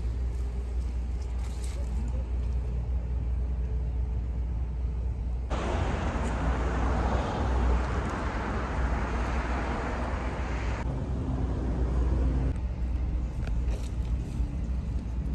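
City street traffic noise: a steady low rumble, with a louder rushing noise lasting about five seconds in the middle.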